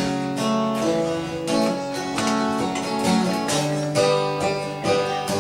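Acoustic guitar strummed in a steady rhythm of about two strums a second, its chords ringing on between strokes.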